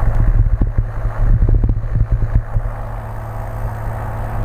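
Cessna L-19 Bird Dog's six-cylinder Continental O-470 engine and propeller running steadily at climb power, heard from the cockpit as a low, even drone. Irregular low buffeting rides over the drone for the first two and a half seconds.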